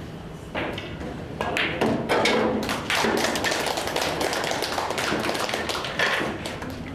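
A pool cue strikes the cue ball and a ball knocks into a pocket, followed by a few seconds of dense, quick, irregular tapping.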